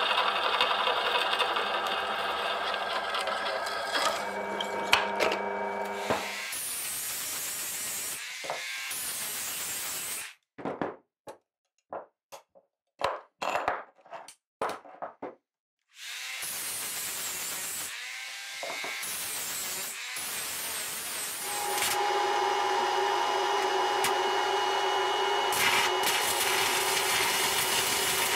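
Drill press running and boring through a stainless steel plate. Midway come a run of separate hand-file strokes across the metal. Near the end comes the steady buzz of electric arc welding.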